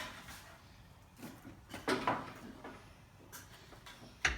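A few scattered light knocks and clunks of things being handled, the loudest around two seconds in and another near the end; the saw's motor is not running.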